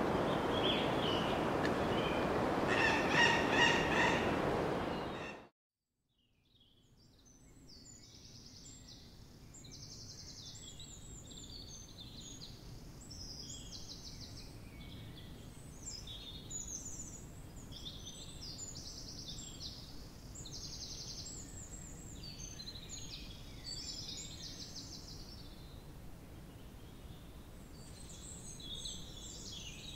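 A steady rushing noise with a few bird calls cuts off sharply about five seconds in; after a moment of silence, many birds sing and call busily over a quiet outdoor background.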